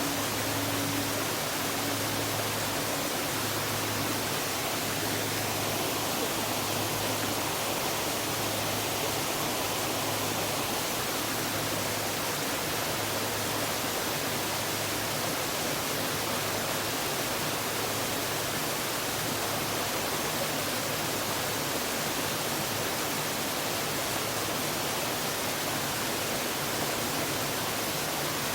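Steady rush of a waterfall with the low hum of a struck Buddhist temple bell (bonsho) lingering underneath. The hum wavers in a slow beat, and its higher tones die away within the first few seconds.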